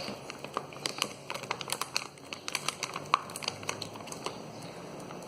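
Slime being handled and squished, giving a run of small, irregular clicks and crackles.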